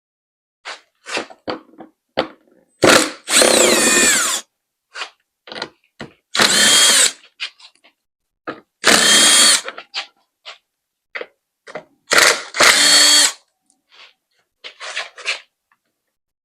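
Power drill-driver running in four short bursts of about a second each, its whine sliding up and down in pitch as it spins out screws and bolts. Small clicks and rattles of handled parts come in between.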